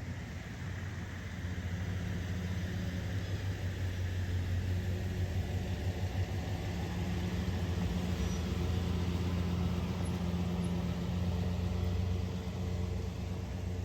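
A heavy engine running with a steady low hum and a rushing hiss. It gets louder about a second and a half in, then holds steady.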